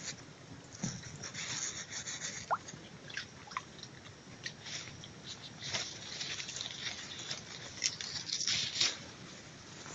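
Dry leaves and twigs rustling and crackling close by, in many short irregular clicks over a steady hiss, with a brief rising whistle about two and a half seconds in.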